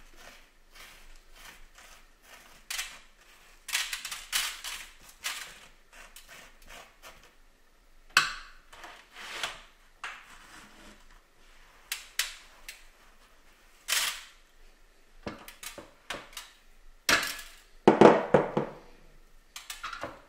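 Coarse sea salt being scraped and dug away from a salt-cured beef fillet with a silicone spatula and fingers: a series of short, gritty scrapes and crunches in a glass dish. The loudest, fuller scrape-and-bump comes about two seconds before the end, as salt is scraped off over a metal baking tray.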